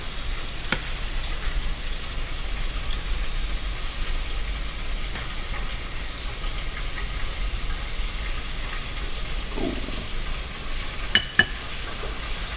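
A steady hiss, with a serving spoon clinking against a bowl and plate a few times as food is dished up; two sharp clinks near the end are the loudest sounds.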